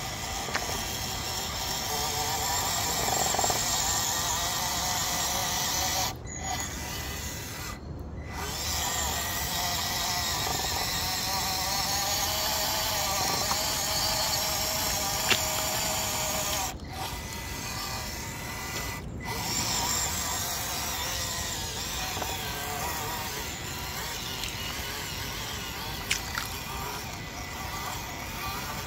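Traxxas TRX4M mini crawler's small brushed electric motor and drivetrain whining as it drives through mud, the pitch wavering as the throttle changes, cutting out briefly four times.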